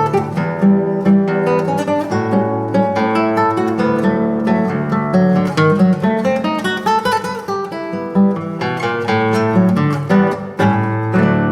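José Ramírez concert classical guitar playing a solo piece: quick runs of plucked notes and chords over ringing bass notes.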